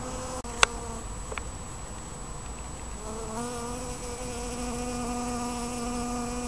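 Honeybee buzzing as it flies around willow catkins: a steady, even hum heard briefly at the start, then again from about three seconds in to the end. A single sharp click about half a second in is the loudest moment, with a fainter click just under a second later.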